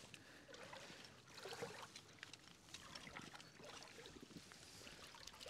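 Faint, irregular splashing and trickling of shallow rock-pool water, with small clicks.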